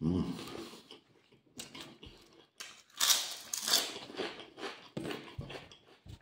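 A person chewing a mouthful of crusty ham baguette sandwich close to the microphone, in irregular bursts of mouth noise, the loudest about three seconds in.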